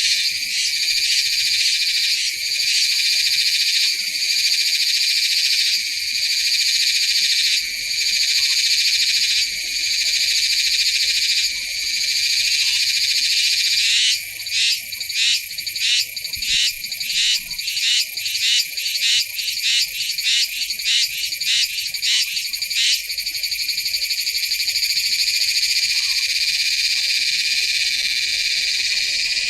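Cicada calling: a loud, high-pitched buzz that breaks midway into rapid pulses, about two a second, for several seconds, then settles back into a steady drone.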